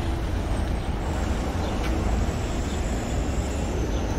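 Steady low rumble of outdoor city ambience: traffic noise with no clear single source, and a faint tick about two seconds in.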